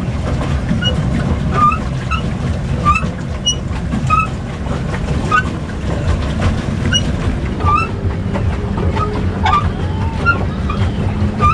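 Small lake boat under way, its drive and the water it churns making a steady low rumble, with short bird chirps repeating over it.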